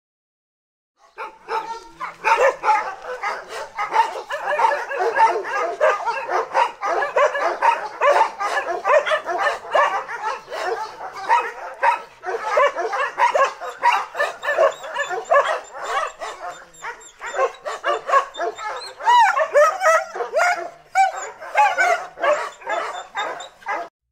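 Many dogs barking and yapping over one another in a dense, continuous chorus. It starts about a second in and cuts off abruptly at the end.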